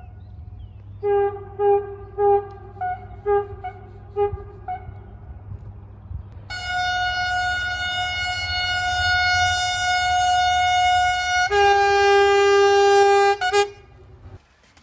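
Train horn sounding a quick run of about seven short toots, then a long blast several seconds long. It gets louder when a lower note joins it, then two brief blasts before it cuts off abruptly. A low steady rumble runs underneath.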